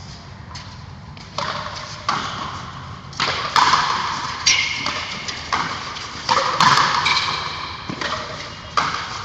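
Frontenis rally: the ball cracking off racquet strings and the frontón wall, with each hit echoing. About ten sharp hits at an uneven pace, starting about a second in and coming quicker after about three seconds.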